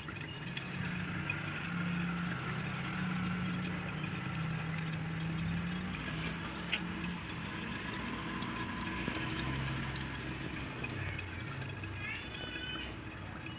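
R134a refrigerant venting from a car's AC system through the manifold gauge's discharge hose into a water-filled bottle: a steady low bubbling drone with a hiss, the system nearly emptied.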